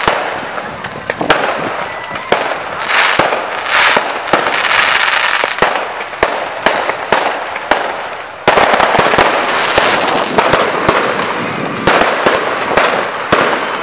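Fireworks display going off: a rapid, irregular string of sharp bangs and cracks over a continuous crackling hiss. It grows denser and louder about eight seconds in.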